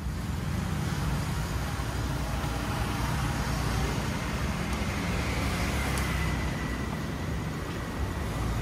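Steady road traffic noise from vehicles passing on the street.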